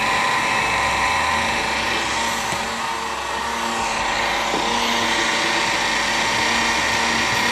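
Countertop electric blender running steadily, its motor whining at a constant pitch as it blends a creamy strawberry ice cream mixture in the jar.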